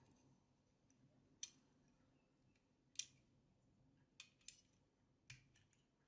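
Faint, scattered sharp clicks and taps, about six in all, the loudest about a second and a half and three seconds in: small tools and parts being handled during a drone repair.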